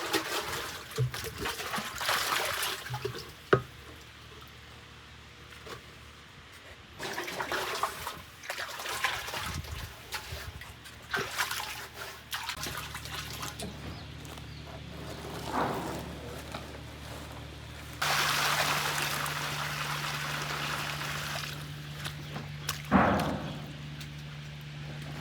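Water pouring and splashing in spells of a few seconds, the longest and steadiest pour about eighteen seconds in. Two sharp knocks stand out, one a few seconds in and one near the end, over a low steady hum that starts about halfway through.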